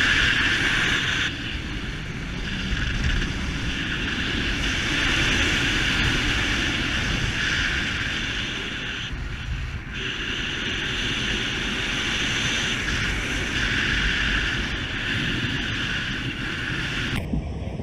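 Wind rushing over a paraglider's camera microphone in fast flight: a steady rush with low buffeting that swells and eases. It breaks off abruptly near the end.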